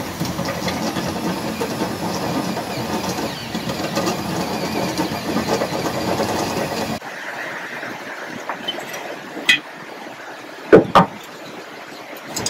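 Electric arc welder crackling steadily as a bead is laid on steel, stopping abruptly about seven seconds in. A few sharp metal clanks follow near the end, the loudest a quick pair.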